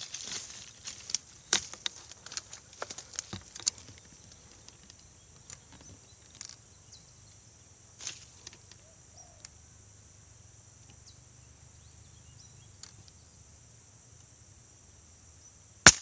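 A single sharp air-rifle shot near the end. Before it, a scatter of light clicks and rustles from handling the rifle in the first few seconds, over a steady high drone of insects.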